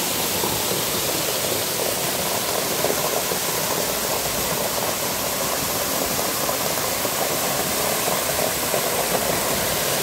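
Waterfall pouring onto rocks close by: a steady, unbroken rush of water.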